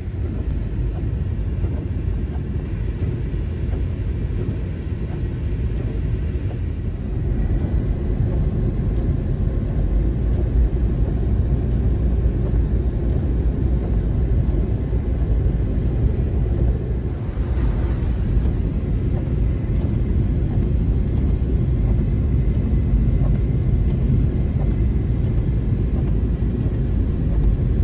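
A car being driven on a snow-covered road, heard from inside the cabin: steady low road and engine noise, a little louder from about seven seconds in.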